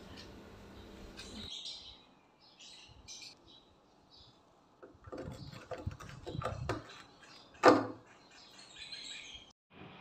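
Screwdriver working the rusted screws of a Panasonic NA-F852B washing machine's plastic control panel: scattered scrapes and clicks, with one sharp click near the end. Birds chirp now and then in the background.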